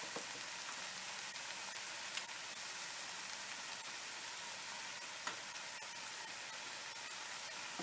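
Tomato-onion masala cooking in oil in a stovetop pan, sizzling quietly and steadily under a layer of freshly added raw mushroom pieces, with a few faint pops.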